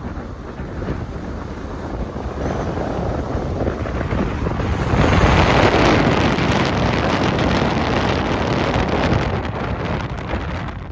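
Wind buffeting the microphone: a loud, rough rushing noise that swells about five seconds in and cuts off abruptly at the end.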